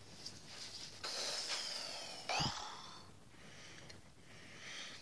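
Breath blown through a drinking straw into a blob of slime to inflate it: breathy puffs of air, with a short, sharper puff just over two seconds in.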